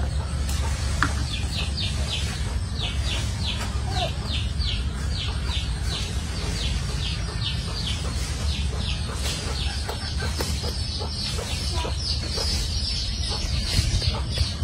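Chickens peeping: a steady run of short, high chirps, about three a second, over a constant low rumble.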